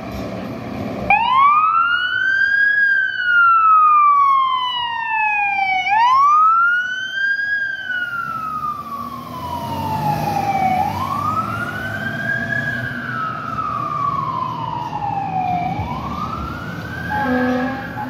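Fire engine siren wailing, starting about a second in. Each cycle rises quickly and then falls slowly, repeating roughly every five seconds. It grows fainter as the engine moves away.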